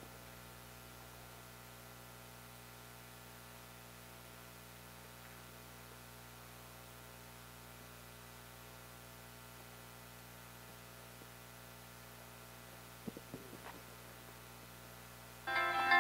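Steady electrical mains hum with several fixed tones, with a few faint clicks about 13 seconds in. Music with guitar starts abruptly just before the end.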